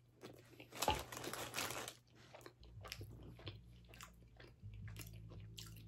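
A man biting into and chewing fast food: several crunching bites in the first two seconds, then quieter, wet chewing clicks. A steady low hum comes in partway through.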